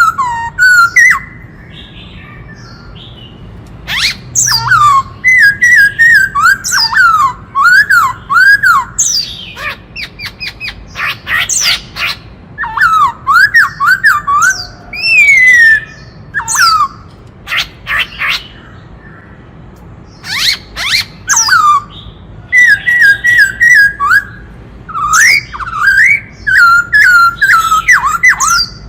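Black-throated laughingthrush singing: loud phrases of quick rising and falling whistled notes, repeated in bursts with short pauses between them.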